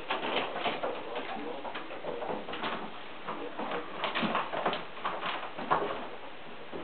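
Kittens' paws and claws on a wooden cat gym: irregular soft thumps, taps and scrabbling scrapes as they climb the ramp and jump between the platforms.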